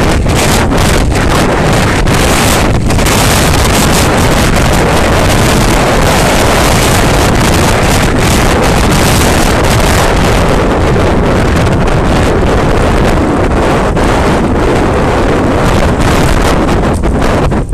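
Loud wind buffeting on a moving action camera's microphone while cycling, a dense, steady rushing noise broken by a few brief dips.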